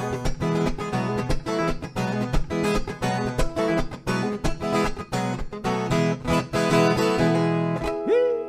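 Viola caipira, the Brazilian ten-string folk guitar, playing a fast instrumental moda de viola passage of quick plucked notes over steady bass strings. The playing stops just before the end.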